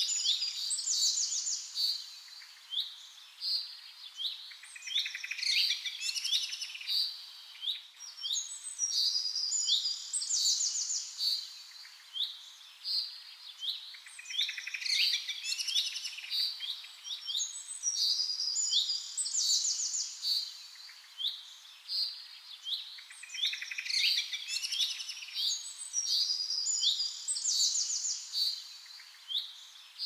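Small songbirds chirping and singing: high-pitched calls and rapid trills in phrases that come every few seconds.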